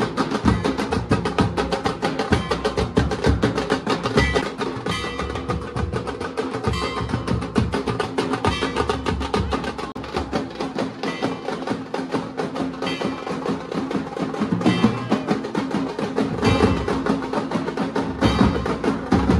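Music carried by fast, dense drumming, with rapid strokes and drum rolls.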